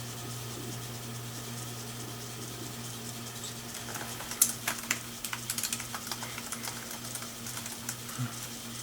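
Steady low hum, joined about halfway through by scattered light clicks and taps, typical of small hard objects being handled.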